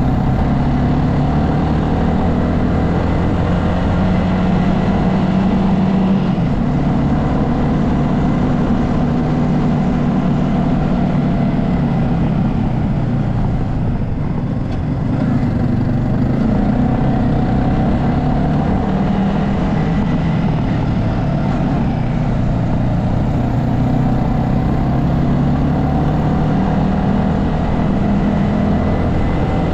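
Motor scooter engine running steadily while riding along the road, its pitch drifting gently up and down with the throttle.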